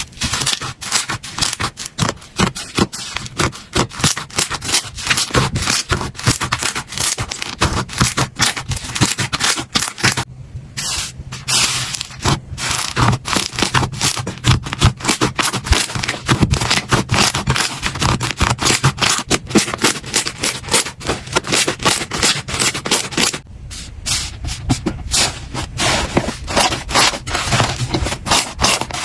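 Slime being squeezed and worked by hand, giving a dense run of rapid crackling and clicking pops, broken by short pauses about ten, eleven and twenty-three seconds in.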